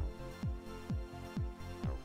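Background electronic dance music with a steady kick drum, a little over two beats a second.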